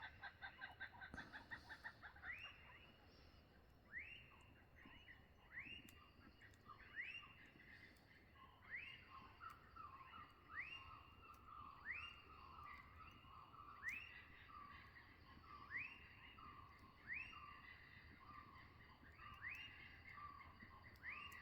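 Dawn chorus of birds, faint. A call that sweeps sharply up and then trails down repeats every second or two, overlapped by lower calls from other birds. A rapid pulsed trill fades out over the first second or so.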